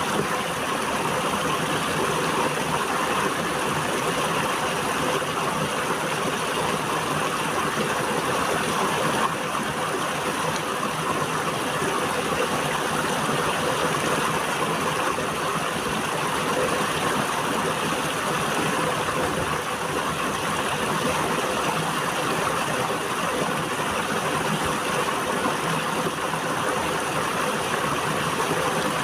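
River water flowing steadily, a constant even rush with no breaks or single splashes.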